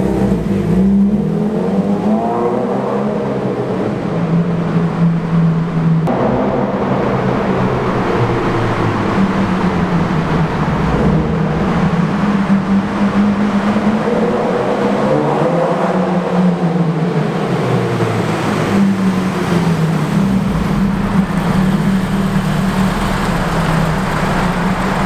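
Subaru BRZ's flat-four engine heard through its exhaust, the pitch rising and falling several times as it is revved and eased off.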